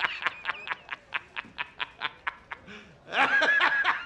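A person laughing hard in quick breathy pulses that slow down, then breaking into a louder, high-pitched laugh about three seconds in.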